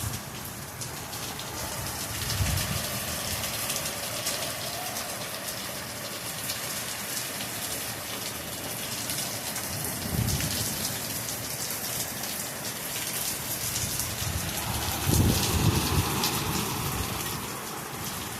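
Heavy rain pouring down and splattering in a steady dense hiss, with a few brief low rumbles, the loudest about fifteen seconds in.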